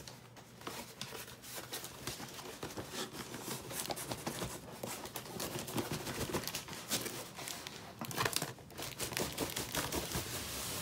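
A large cardboard monitor box being turned over and its end flaps worked open by hand: irregular scraping, rubbing and crinkling of cardboard with scattered small knocks.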